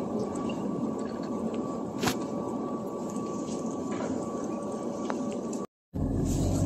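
Wheels of a rolling suitcase running over a stone floor amid steady hall noise, with a faint steady tone and a single sharp click about two seconds in. Near the end the sound cuts off abruptly and gives way to the low rumble of car road noise.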